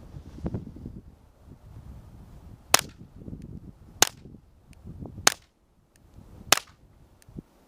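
Four shots from a Smith & Wesson M&P 22 pistol with a Tactical Solutions Axiom suppressor on it, firing Blazer .22 ammunition about a second and a quarter apart; each is a short, sharp crack.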